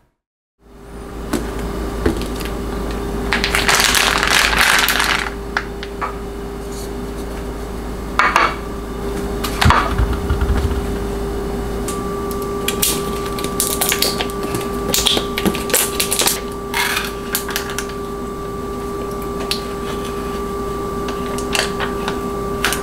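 Handling sounds at a kitchen counter: a rustle and a few knocks, then from about halfway a run of short crinkles and taps as a yogurt cup's foil lid is pressed down and peeled off. A steady hum runs underneath throughout.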